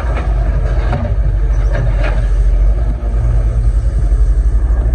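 Excavator's diesel engine running with a steady low rumble.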